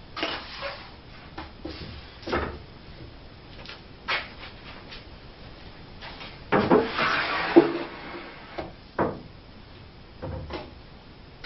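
2x4 boards knocking and bumping against a wooden table frame as they are handled into place, with a longer stretch of wood scraping on wood about six and a half seconds in.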